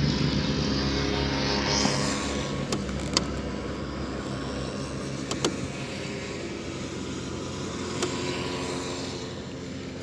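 Steady running noise of a car, heard from inside the cabin, with a few light clicks and knocks along the way.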